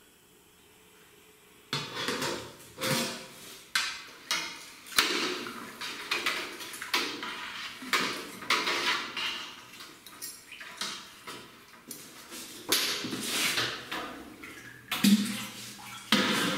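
A paddle stirring half-thawed raw milk in a stainless steel pot: irregular sloshing and scraping strokes with clanks of the metal pots, starting about two seconds in after near silence.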